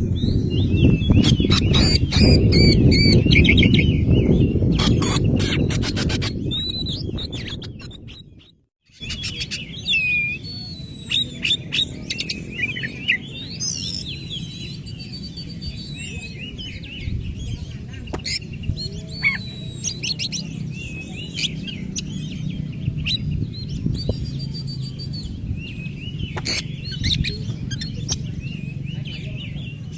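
Oriental magpie-robin (kacer) singing a long, varied song of whistles and quick chattering notes. A loud low background under the first eight seconds fades out to a brief silence just before nine seconds, and the song then goes on over a quieter background.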